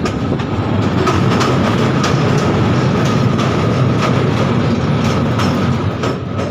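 Passenger train running at speed, heard from aboard: a steady rumble of wheels on rails with scattered clicks as the wheels pass over rail joints.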